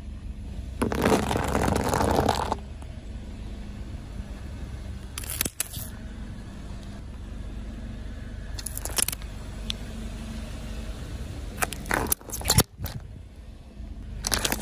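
A car tyre rolling over and crushing small objects one after another: a pink rubber pig toy, plastic paint tubes and plastic slime tubs. The result is a run of separate crunching, crackling bursts, the first and longest about a second in, all over the car's steady engine running.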